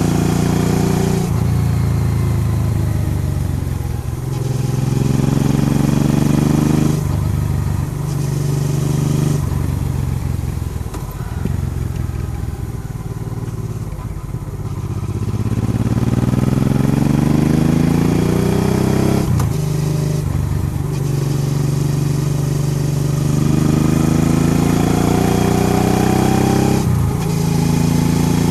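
Honda Transalp XL650V's V-twin engine under way, its note repeatedly rising as it accelerates and dropping back at each of several gearchanges and throttle lifts, with wind rush on the microphone.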